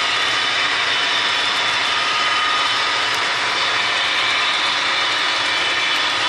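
Model-railroad freight train rolling past, its cars running over the track with a steady, even mechanical noise.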